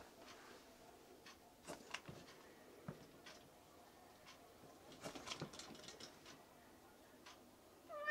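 Near silence broken by scattered faint taps and light rattles, with a small cluster about five seconds in, from a kitten moving about and pawing at its wire cage. A kitten's meow, falling slightly in pitch, begins right at the end.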